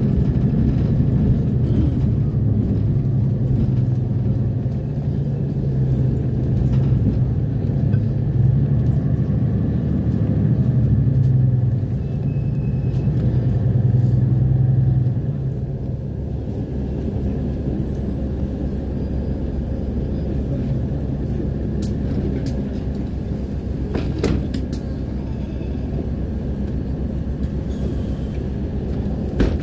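A city bus's engine and rumble heard from inside the cabin: a strong, steady low hum while the bus is moving. About halfway through it drops to a quieter, steady running sound as the bus slows and stands at a stop, with a few faint clicks.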